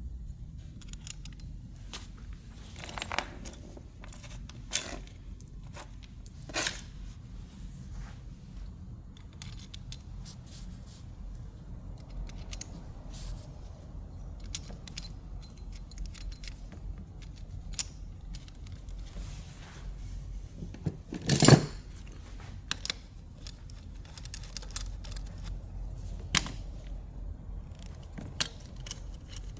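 Small metal parts and tools being handled, giving scattered clinks and taps, with one louder knock about two-thirds of the way through.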